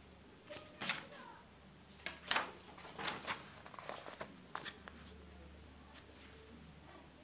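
Paper rustling and scraping as a notebook is slid across a paper-covered table and set in place by hand: a run of short crinkling rustles over about four seconds, the loudest about two seconds in.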